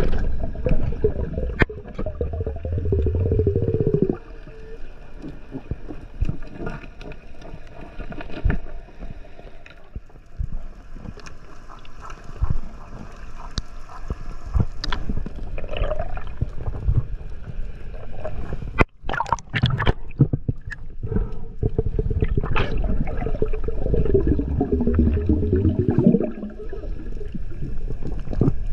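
Underwater sound picked up by a diver's camera: muffled water rush with two long stretches of gurgling air bubbles, one at the start and one about three-quarters of the way through, and scattered small knocks.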